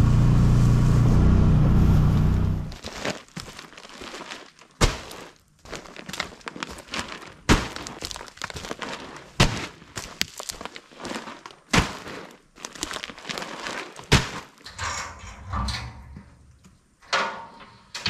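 A side-by-side utility vehicle running as it drives through tall grass, stopping short about two and a half seconds in. Then a string of sharp knocks and thunks with rustling, as a bag of deer feed is lifted and handled at a metal deer feeder and the feed mixed in it.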